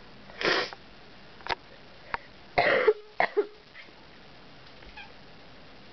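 A sick person coughing: several short separate coughs, the loudest a double cough about two and a half seconds in, with smaller hacks and throat sounds between.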